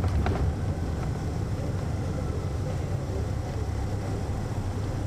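Detroit Diesel Series 60 diesel engine of a 2002 MCI D4000 coach-style transit bus running, heard from inside at the rear of the bus as a steady low drone.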